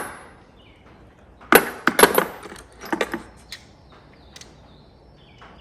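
Steel Craftsman sockets clinking against one another as they are picked up and set down: a quick cluster of sharp metallic clinks about a second and a half in, then a few lighter ticks.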